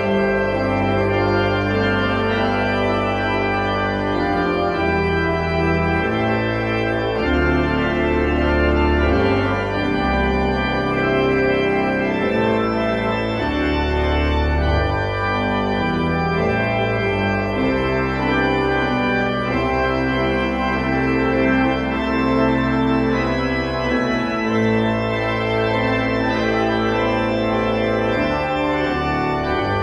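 Church pipe organ playing the postlude: slow, sustained full chords over deep pedal notes that shift every second or two.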